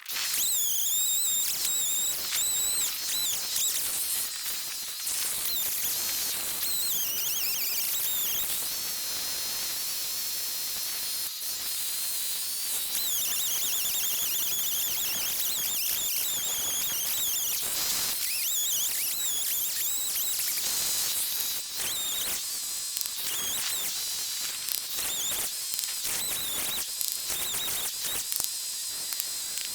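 Chainsaw running hard while cutting, a steady high whine whose pitch dips and recovers several times as the saw works through the wood.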